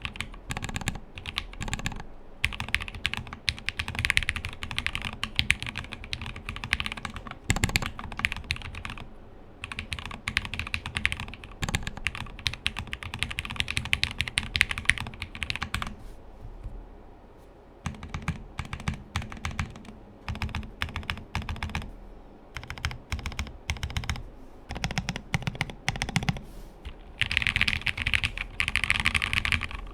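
Mechanical keyboard being typed on continuously: a plateless, burger-mounted aluminium-case board with lubed Cherry-topped JWK linear switches, dense runs of keystrokes with a short pause about halfway through.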